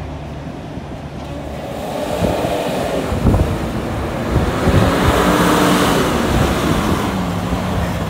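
Kenworth semi truck's diesel engine as the rig drives slowly past. It grows louder from about two seconds in and is loudest around five to six seconds, with the engine pitch rising and then easing off.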